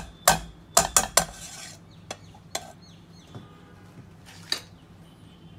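Metal table knife clinking and scraping against a nonstick pan as butter is knocked off it into the pan: a quick run of sharp clinks in the first second and a half, then a few fainter taps.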